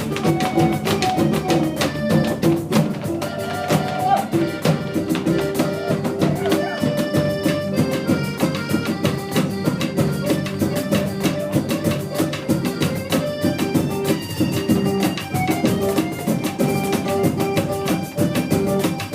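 Live band playing an instrumental Latin American piece: pitched instruments over drums and percussion, with a steady beat.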